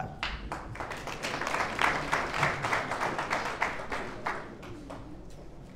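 Audience applauding, a dense patter of clapping that thins out and fades over the last second or so.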